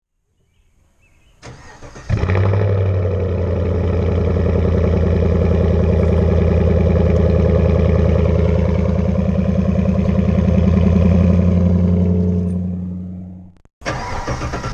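Chevrolet Silverado 5.3-litre V8 with a Corsa Sport cat-back exhaust, heard at the tailpipes. It cranks briefly and starts about two seconds in, then idles steadily with a deep exhaust note. The sound fades out near the end.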